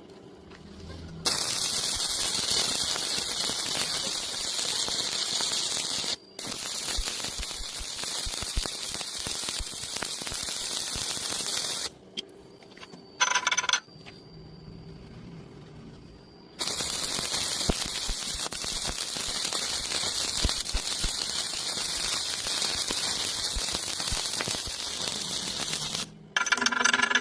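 An electric welding arc crackling and hissing as it lays a weld bead on steel plate. It comes in two long runs of about ten seconds each, separated by a pause of a few seconds.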